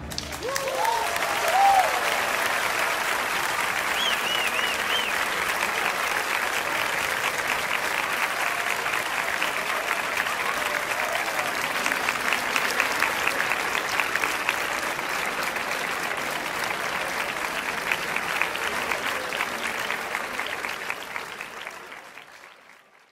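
Large crowd applauding, with a few cheering calls in the first few seconds, the clapping fading away near the end.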